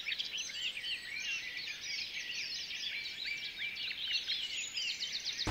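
Many birds chirping and calling at once, short high calls overlapping one another without a break.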